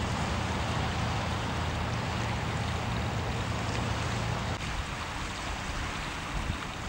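Wind buffeting the microphone outdoors, a steady rushing noise with a low rumble underneath that drops away about four and a half seconds in.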